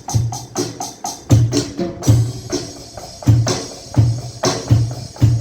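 Alesis Nitro Mesh electronic drum kit played in a groove: kick drum hits with snare and hi-hat strokes, and a cymbal ringing on from about two seconds in.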